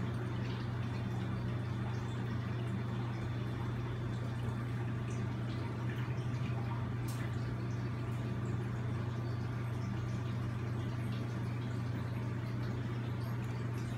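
A tegu lizard eating from a plate, with faint, scattered wet clicks and smacks of its jaws. A steady low hum runs underneath and is the loudest thing heard.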